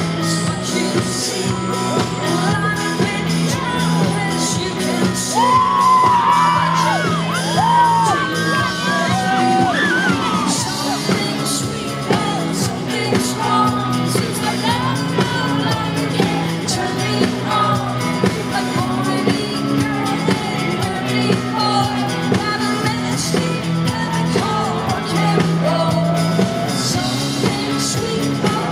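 Rock band playing live, with a female lead vocal over bass, guitars and drums, and shouts and whoops on top.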